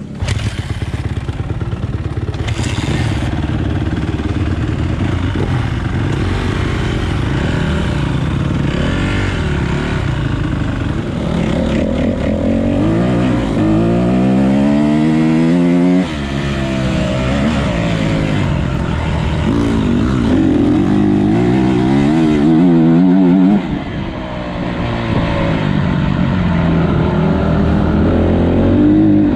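On-board sound of a motocross bike's engine being ridden hard on a dirt track. Its pitch climbs again and again as it accelerates, then drops sharply when the throttle closes, most clearly about halfway through and again about three-quarters through.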